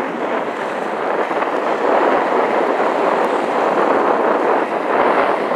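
Wind-driven lake waves breaking against and washing over a concrete pier edge: a steady loud rush of surf that swells about two seconds in and again around five seconds.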